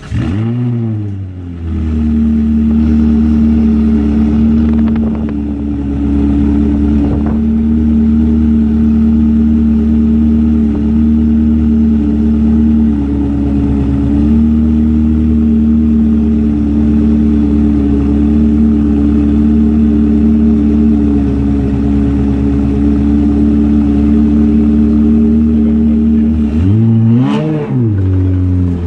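Ferrari engine idling steadily, blipped once at the start and again near the end, each time a quick rev that rises and falls back to idle.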